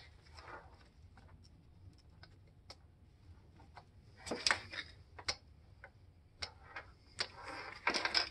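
Light, scattered clicks and taps of plastic and metal parts being handled as fuel injectors on their rail are seated into the intake manifold holes, with a louder group of knocks about four and a half seconds in and a short rustle near the end.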